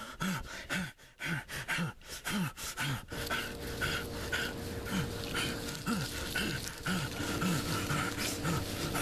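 Heavy, rhythmic panting of a running man, about two short voiced breaths a second, with rustling steps in grass. A faint steady tone joins about three seconds in.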